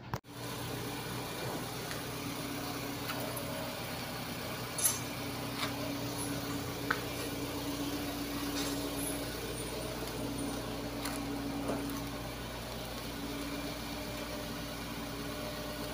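Mitsubishi Xpander's engine idling steadily, with a few light clicks in the middle.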